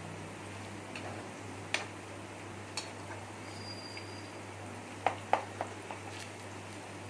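Masala-coated chicken pieces deep-frying in hot oil in a kadai: a steady sizzle with a few scattered sharp pops, two close together about five seconds in.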